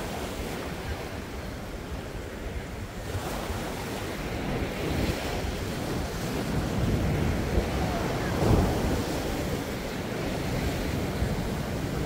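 Winter sea waves surging and breaking against a rocky shore, with wind buffeting the microphone. The surf swells, and a bigger wave breaks loudest about two-thirds of the way through.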